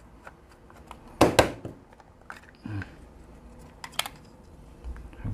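A few sharp clicks and knocks of small hard parts being handled, as a car diagnostic interface is taken apart. The loudest pair comes about a second in, with softer ones later.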